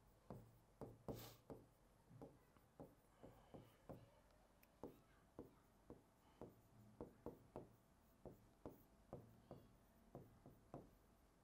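Faint taps and clicks of a stylus on an interactive smart-board screen as words are handwritten, an irregular run of about two or three taps a second.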